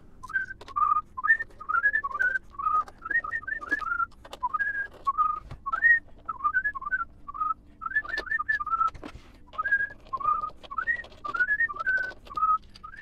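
A man whistling an idle, wandering tune in short phrases while he works. Light clicks of a screwdriver on screws and on the plastic case come through now and then.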